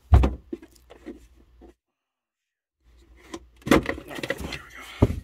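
Plastic fuse box cover in a car's trunk being handled and unclipped: a sharp knock just after the start, then scattered plastic clicks and rattles, heaviest in the second half. About a second of total silence falls in the middle.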